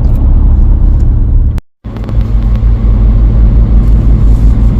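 Steady low road and engine rumble inside a moving campervan's cab, with a brief complete break about a second and a half in.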